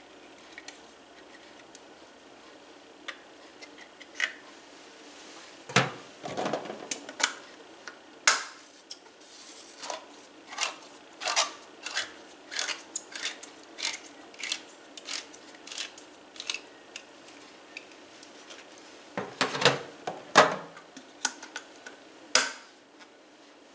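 Handheld manual can opener being cranked around a tuna can lid: a run of short metallic clicks, about two a second, as the wheel cuts the lid. Louder knocks come a few seconds in and again near the end.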